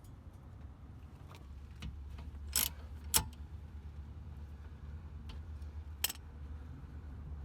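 Hand tools and suspension parts knocking and clinking against metal: about six short, sharp clinks, the loudest a little over two and a half seconds in, just after three seconds and around six seconds, over a low steady hum.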